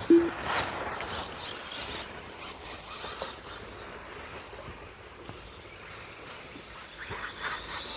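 Electric motors of 1/10 scale RC stadium trucks whining as the trucks race past, the pitch falling as they go by, over outdoor background noise. A short, loud beep right at the start.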